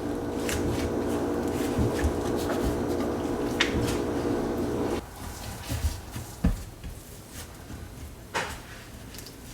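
Bread dough being kneaded by hand on a counter as butter is worked in: scattered soft knocks and squishes of the dough against the work surface. A steady hum runs underneath and cuts off suddenly about five seconds in.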